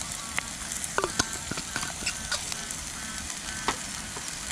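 Steady sizzling of a vegetable and Quorn stir fry frying in a pan on a camping gas stove, with scattered short pops and clicks.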